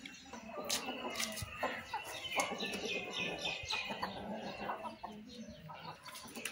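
Chickens clucking, with a quick run of short calls from about one to four seconds in and scattered sharp clicks.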